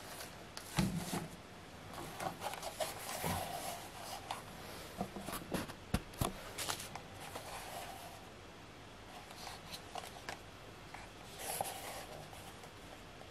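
Hands handling a leather knife sheath on a mesh cloth: irregular rustling and rubbing of leather and fabric, with scattered light clicks and taps.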